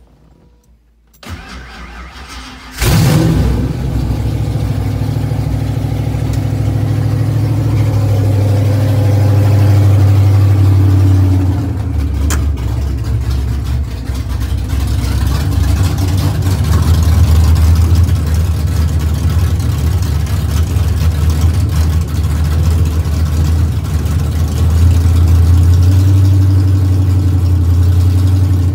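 Fox-body Mustang's 302 V8 with a B303 cam and GT40P heads: the starter cranks for about a second and a half, the engine catches with a loud burst and then runs steadily at idle through open exhaust. It is a cold start on an untuned engine with the ignition timing not yet set.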